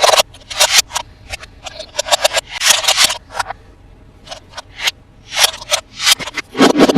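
Toy packaging being handled and opened by hand: irregular short rustles, scrapes and clicks, with a quieter stretch about four to five seconds in and a denser burst near the end.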